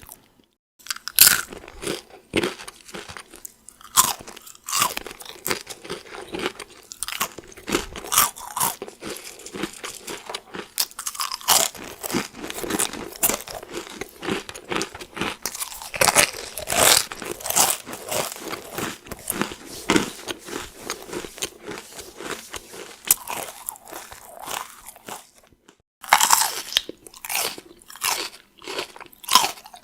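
Cheez-It crackers being crunched and chewed close to the microphone, a dense run of crisp crunches. Near the end, after a brief pause, louder crisp bites and chewing of raw bell pepper begin.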